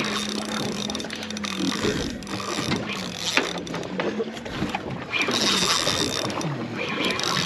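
Spinning reel being cranked under the load of a hooked blackfin tuna, with repeated mechanical clicking from its gears and handle, over the steady hum of the boat's outboard motors.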